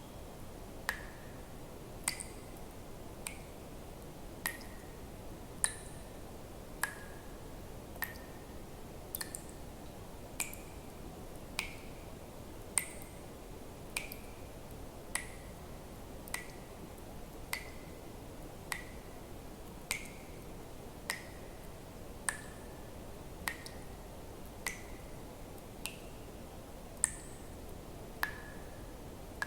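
Water drops falling one at a time, a short ringing plink roughly every second and a bit at an even pace, over a faint steady hiss.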